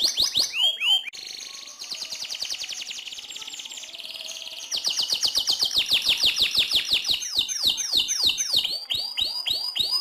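Domestic canary singing a long rolling song of fast trills of repeated notes. The trill drops softer about a second in, comes back loud a little before halfway, and ends in slower, downward-sliding notes.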